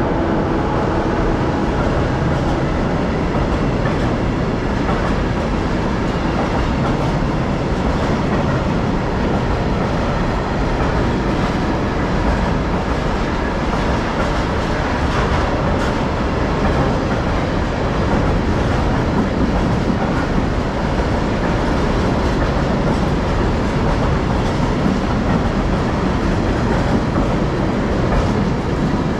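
Freight train rolling past close by: a loud, steady rumble and rattle of wagon wheels on the rails.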